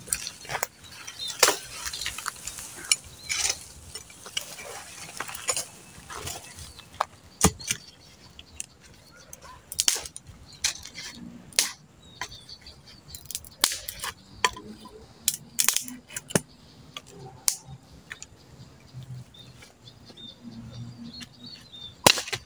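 Dry twigs and sticks being snapped by hand and laid for a campfire: irregular sharp cracks and snaps among light rustling of dry wood and leaves.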